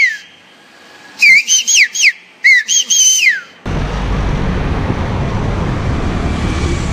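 A man whistling loudly through his fingers: a shrill whistle that falls away just after the start, then a run of short rising-and-falling whistles from about one to three and a half seconds in. After that, steady street noise with traffic and wind.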